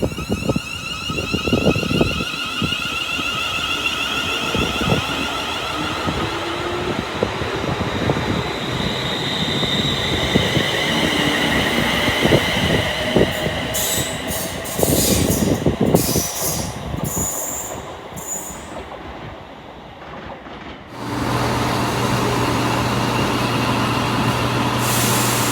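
Train running on the rails, with several high steady whining tones over repeated clicks and knocks from the wheels. About three-quarters of the way through, the sound changes abruptly to a steady low hum.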